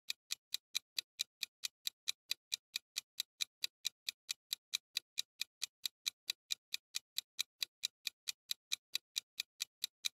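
Clock-tick sound effect for a ten-second countdown timer: quick, evenly spaced ticks, a little over four a second, that stop as the count reaches zero.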